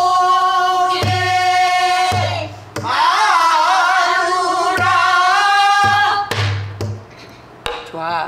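A woman singing pansori in long, wavering held notes, accompanied by a few low strokes on a buk barrel drum and sharp clicks of the drumstick.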